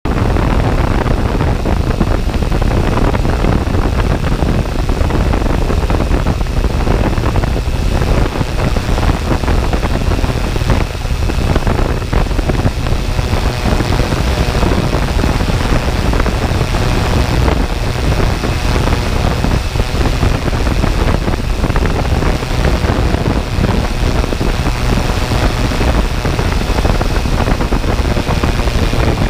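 Camera drone's electric motors and propellers, heard from the aircraft itself: a loud, steady rushing noise with a faint high whine.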